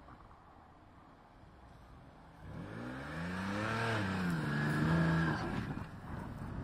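Isuzu VehiCROSS V6 engine revving hard twice as the SUV ploughs through deep snow, the revs rising and falling and then dropping away after about five and a half seconds, following a quiet first couple of seconds. The exhaust sounds odd because the front exhaust Y-pipe is cracked.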